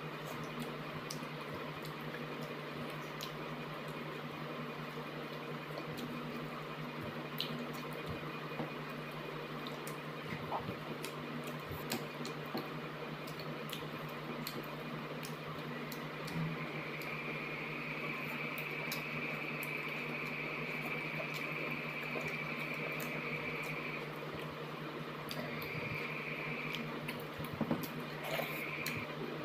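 Close-up eating sounds of rice and fish curry eaten by hand: chewing, wet squishes and small lip-smack clicks scattered throughout, over a steady low hum. A high steady tone comes in about halfway through and returns twice briefly near the end.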